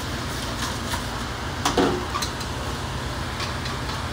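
Wire whisk beating egg yolks by hand in a stainless steel bowl, the wires scraping and ticking against the metal, with one louder clink a little under halfway, over a steady kitchen hiss.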